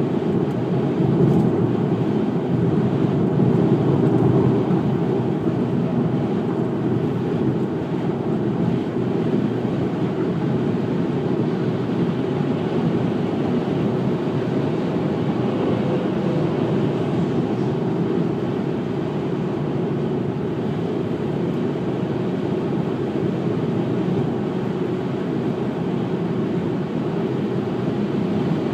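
Car driving at highway speed: steady road, tyre and engine noise.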